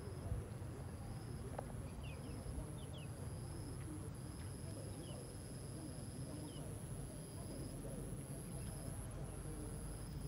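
Insects trilling in the flooded, overgrown vegetation: a steady thin high whine, with a lower trill that runs in stretches of about a second with short breaks. A few short bird chirps come through over a steady low rumble.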